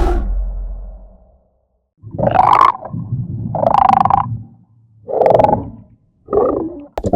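Designed amphibian-man monster sound effect: a sudden low hit that dies away over about a second and a half, then four separate rough creature calls, the last one short. A fast pulsing sound begins right at the end.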